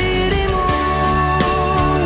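Background music: a song with a long held melody note over steady accompaniment.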